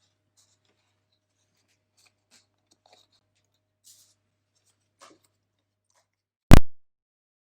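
Faint scattered rustles and light ticks of paper packaging being handled, then one sudden loud thump about six and a half seconds in that dies away at once.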